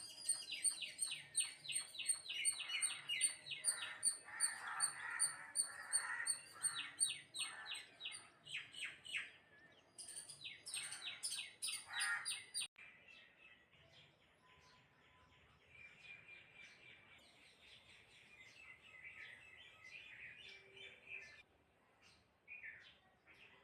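Birds chirping: a fast run of loud, repeated high chirps, about four a second, then about halfway through the sound cuts abruptly to softer, scattered chirping.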